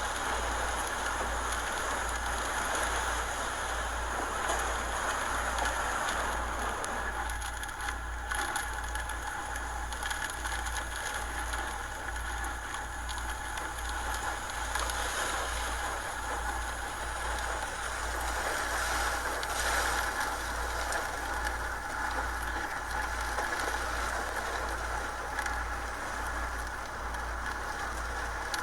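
Hurricane wind and heavy rain making a steady noise, over a low pulsing rumble.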